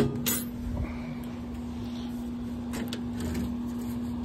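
A sharp knock at the start, then a few light clicks, as a tractor grill guard and its expanded-metal mesh are handled against the hood, over a steady low hum.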